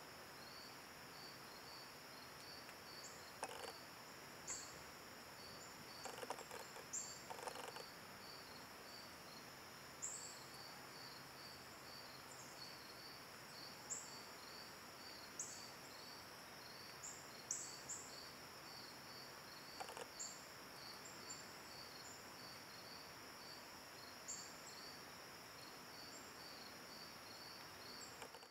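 Faint chorus of crickets and other insects shrilling steadily, with a regular pulsing chirp about two or three times a second and short high chirps now and then. A few brief faint rustles break in, one about three seconds in, a cluster around six to seven seconds and one about twenty seconds in.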